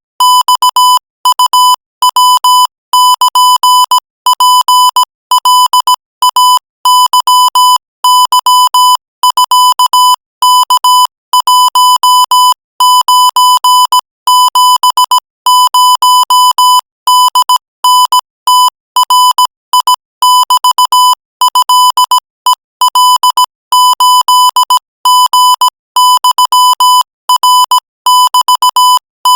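Morse code sent at 20 words per minute: a single steady beep tone keyed on and off in dots and dashes, with short gaps between characters and words.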